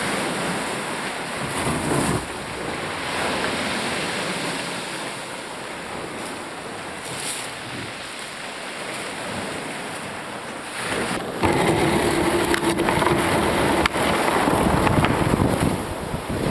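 Surf breaking and washing up a pebble beach in rough seas. About eleven seconds in it changes to a louder, steady rush of choppy water and wind around a sea kayak out on the waves.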